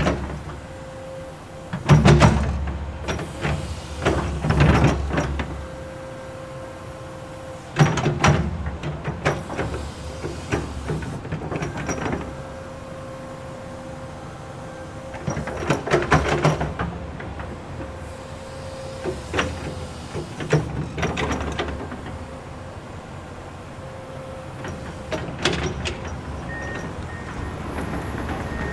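Komatsu excavator working: the engine runs under a faint steady whine, broken every few seconds by louder surges of rumbling and metal clanking, the loudest about two seconds in and again near eight and sixteen seconds.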